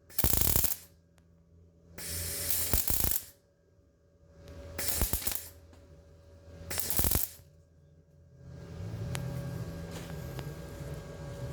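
MIG welder laying short runs of weld: four crackling bursts, each stopping after about half a second to a second, then a longer, quieter, steadier run of sputtering beginning about eight and a half seconds in.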